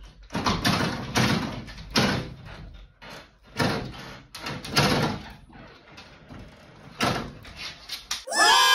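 A dog's paws knocking and rattling a glass-paned door in its frame as it paws at the door and handle, about half a dozen irregular knocks. Just before the end a loud high-pitched sound with wavering pitch starts.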